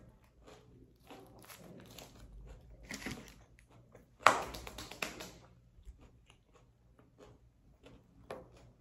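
Someone biting and chewing a chicken breast sandwich at close range, with small crunches and crackles. About four seconds in there is one much louder sharp knock, followed by a few light taps near the end.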